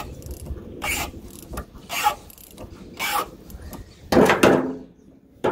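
Ratchet wrench clicking in short strokes about once a second, with a louder stroke about four seconds in. It is backing off the adjustment nut on a Fontaine fifth wheel's locking jaw to set about a quarter inch of free play.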